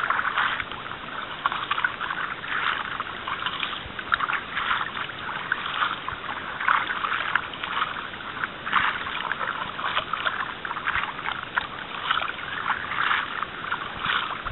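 Kayak paddle blades dipping into and pulling through calm water on alternate sides, each stroke a splash and drip of water, about one a second, over a steady hiss of moving water.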